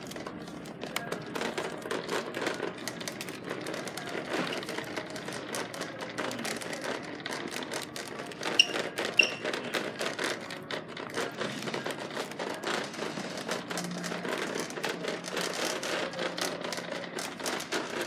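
Indoor store background noise with rapid, irregular clicks and knocks from footsteps and a handheld phone while walking. Two short high beeps about halfway through.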